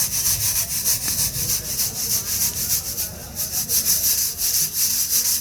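Dry puffed-rice bhuja mix being stirred and scraped in a pan, with rhythmic scraping and rustling strokes, about four to five a second.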